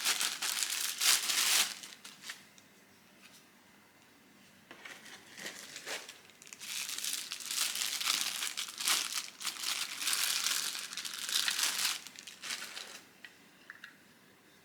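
Packaging crinkling and rustling as it is handled and pulled off during an unboxing: a burst at the start, a pause of a few seconds, then a longer stretch of crinkling that fades out near the end.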